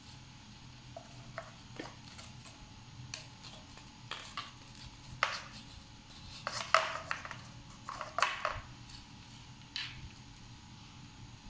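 Paper cups and thin skewers being handled on a tabletop: scattered light taps, rustles and clicks as a skewer is worked through a cup and the cup is set down, with the sharpest clicks coming about two-thirds of the way through.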